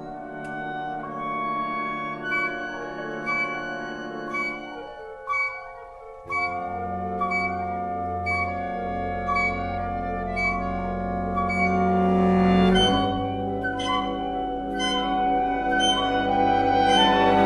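A symphonic band holds sustained, shifting wind and brass chords over sharp struck accents about once a second. Low brass and winds come in fuller about six seconds in, and the music swells louder over the last few seconds.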